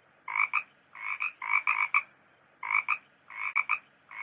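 A frog croaking over and over: short calls of two or three quick pulses each, about six in quick succession.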